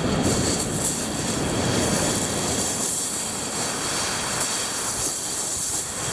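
Waves washing in and out over a shingle beach, a steady rushing noise.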